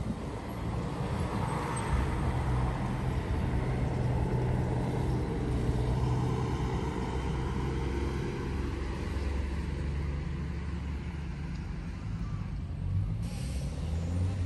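Street traffic: car engines running and passing, a steady low rumble.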